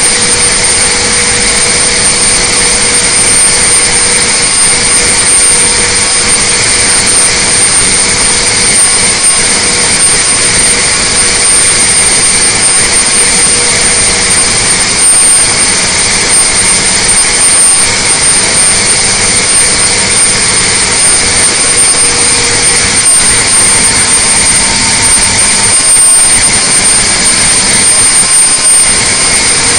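Detroit Diesel Series 60 turbocharged inline-six diesel running at full throttle under steady dynamometer load at about 2,000 rpm. It is loud and unchanging, with a steady high whine over the engine noise.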